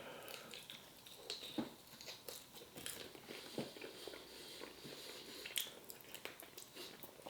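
A person chewing and biting into chicken wings: faint crunching and mouth clicks, scattered and uneven.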